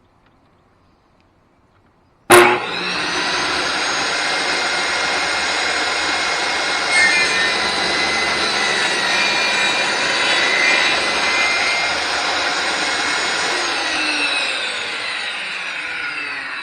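Table saw switched on with a sharp click about two seconds in, its motor coming up to speed and running steadily while a test rabbet is cut through a piece of scrap wood. Near the end the saw is switched off and winds down, its whine sliding lower in pitch.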